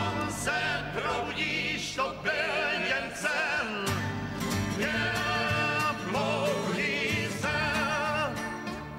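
Folk group singing in harmony, voices held with vibrato, over strummed acoustic guitars and a plucked double bass line.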